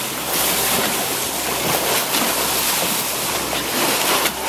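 Water rushing and spraying at the bow of a motor boat under way, over the steady low hum of its engine, with wind buffeting the microphone.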